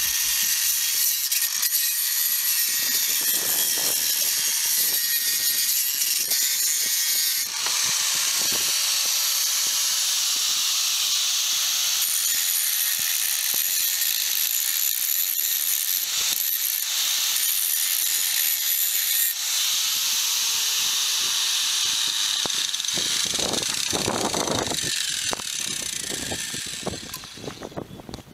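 Electric angle grinder cutting into a conch shell to make a conch horn, giving a steady high-pitched grinding noise. About three-quarters of the way through, the motor note falls, and near the end the sound fades away.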